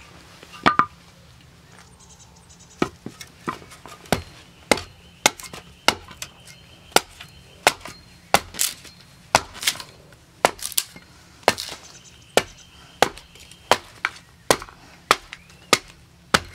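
A hand tool striking repeatedly in a steady working rhythm: sharp, hard blows about one and a half a second, the loudest pair about a second in.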